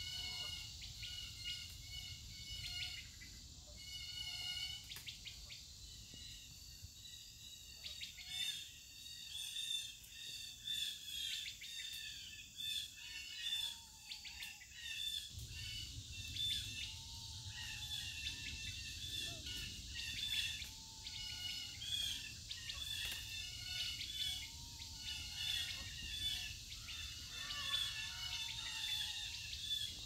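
Woodland birds singing, many short high chirps and trills overlapping. From about eight seconds in, one bird repeats a lower, slurred whistle. A low rumble underneath fades for several seconds and comes back suddenly about halfway through.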